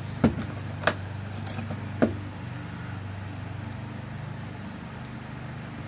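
Three sharp small metal clicks in the first two seconds as the lock cylinder's tail piece and parts are handled and screwed on, over a steady low hum.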